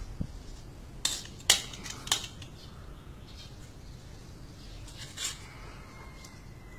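A metal spoon clinking and scraping against a metal bowl of food as it scoops: three sharp clinks a second or two in, the middle one loudest, then a softer scrape about five seconds in.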